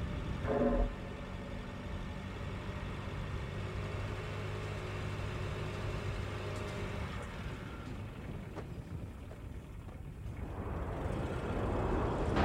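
Steady low rumble of an idling vehicle engine, with a short louder sound about half a second in. In the last two seconds a broad roar swells up and grows louder.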